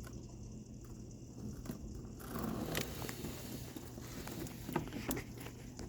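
Rain falling outdoors with scattered drips and ticks, over a low steady rumble of wind and hum. The hiss of the rain swells about two seconds in.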